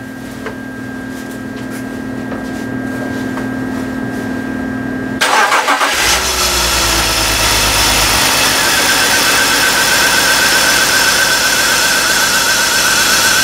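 A steady hum. About five seconds in, the BMW 325xi's M54 2.5-litre inline-six starts and settles into a steady idle. From about nine seconds in a high, wavering squeal runs along with the engine.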